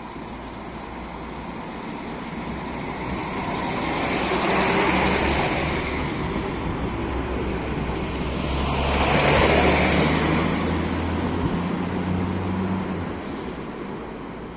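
PESA Link SA139 diesel multiple unit pulling out and passing close by. The engine note and the wheels on the rails build up, swell twice as the cars go past, then fade as the train draws away.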